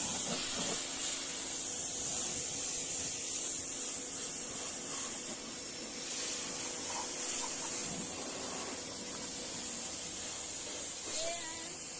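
A 3200 psi electric pressure washer's high-pressure water jet spraying a car's wheels: a steady hiss.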